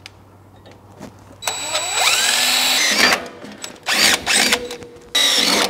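DeWalt 20V cordless drill boring a pilot hole through steel. About a second and a half in it spins up with a rising whine and runs for a second and a half, then it runs in two shorter bursts.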